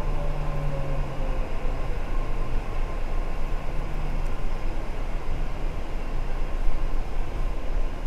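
Metro train running, heard from inside the carriage: a steady rumble and rush. An electric motor whine falls in pitch over the first couple of seconds as the train slows.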